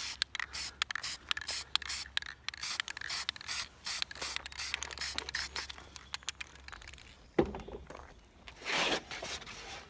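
Aerosol spray paint can hissing in a rapid series of short bursts, quick light misting of black paint, followed about seven seconds in by a single sharp thump and then one longer spray near the end.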